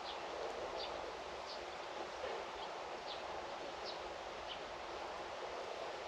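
Outdoor ambience: small birds giving short, high chirps about once or twice a second over a steady rushing background hiss.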